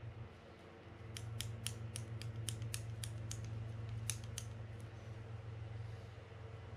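A quick run of small, sharp metal clicks, about four a second, lasting a few seconds, from the parts of a Mitchell 302 spinning reel being handled and turned while grease is worked onto its main shaft. A steady low hum runs underneath.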